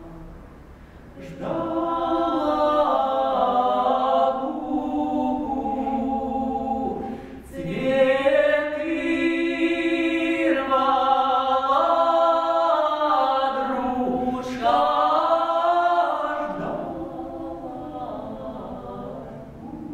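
Male and female voices singing a Russian folk song as an unaccompanied duet in harmony. The singing comes in loud about a second in, breaks briefly for a breath near the middle, and softens over the last few seconds on long held notes.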